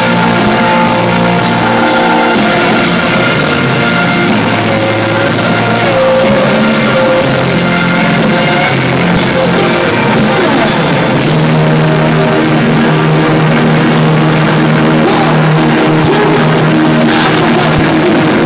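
Live rock music played loud in an arena, with a steady drum beat, guitar and singing.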